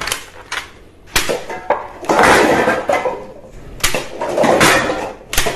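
Toy foam-dart minigun firing a string of sharp single snaps, and a stacked tower of paper cups and drink cans clattering as it falls, in two longer bouts about two seconds in and again around four and a half seconds.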